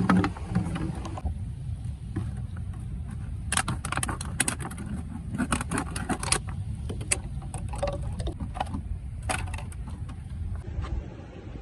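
A plastic water bottle being handled and cut with a knife, crackling in clusters of sharp clicks, over a steady low rumble.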